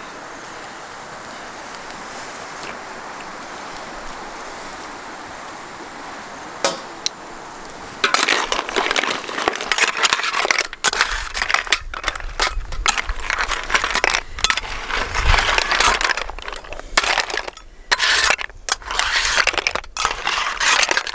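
Fried snail shells clattering and clinking against metal as they are tipped from a wok into a metal tray: a dense, uneven run of clinks starting about eight seconds in, after a steady hiss.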